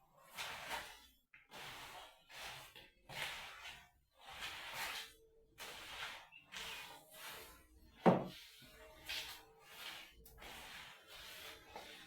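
Broom sweeping a floor: a run of short, irregular brushing strokes, with one loud thump about eight seconds in.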